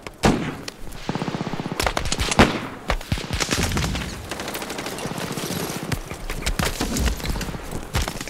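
Gunfire in a battle: scattered single shots and bursts of automatic fire, with a rapid burst about a second in.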